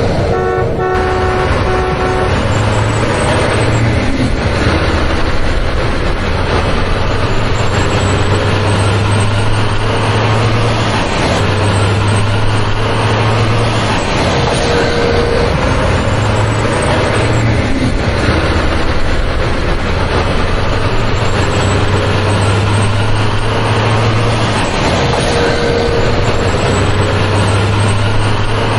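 Heavy truck engine running steadily, its low drone swelling and easing every few seconds, with a horn sounding for the first couple of seconds.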